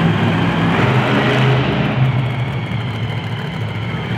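Monster truck engines running loud and steady inside an arena.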